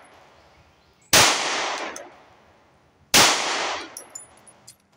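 Two 9mm pistol shots from a Walther PPQ SC subcompact, about two seconds apart, each ringing out and fading over about a second. A few faint ticks follow the second shot.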